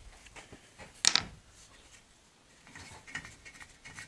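A sharp metallic clink about a second in, then a few faint clicks, from a brake caliper slide bolt being pulled out and handled.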